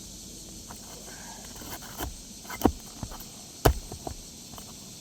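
Work on an asphalt shingle roof as the shingles are loosened: a few sharp knocks with light scraping and ticking between them, the loudest knock about three and a half seconds in.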